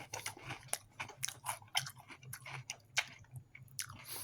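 A person chewing a mouthful of food close to the microphone: a quick, irregular run of small clicks and mouth smacks.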